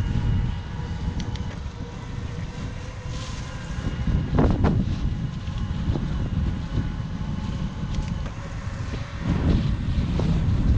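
Wind buffeting the microphone of a camera on an electric bike being ridden, a steady low rumble that swells in two stronger gusts, about four seconds in and near the end, over a faint steady whine.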